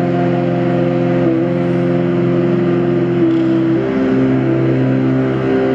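Live improvised drone music: several sustained tones layered together, with notes stepping to new pitches a few times.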